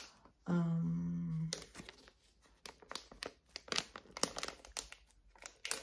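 Plastic retail packaging of an eye cream crinkling and crackling as it is handled, with a short hummed 'mmm' from a woman about half a second in.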